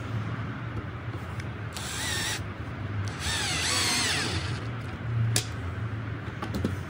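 Bosch 12V cordless drill-driver driving screws into a steel cabinet hinge. It gives two runs of motor whine whose pitch wavers as the trigger is worked: a short one about two seconds in and a longer one a second later. A sharp click follows.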